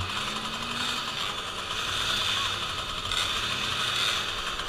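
Several small two-stroke moped engines running together in a steady, rattly buzz, with crowd voices mixed in.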